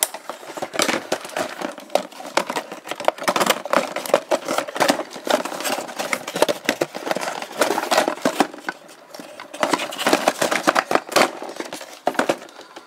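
Cardboard toy box and its plastic packaging being rummaged and handled: a dense, irregular run of rustles, scrapes and clicks.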